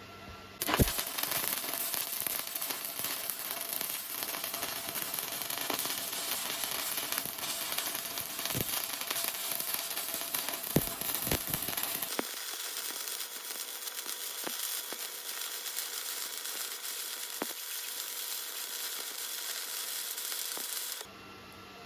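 Electric arc welding: the arc's steady crackling sizzle strikes up suddenly about a second in and breaks off suddenly near the end, with a few sharp pops along the way.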